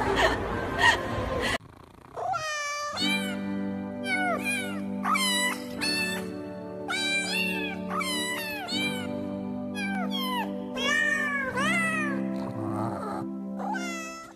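Music with held chords under a run of high, meow-like cries that swoop up and down, about one a second, after a short stretch of noise.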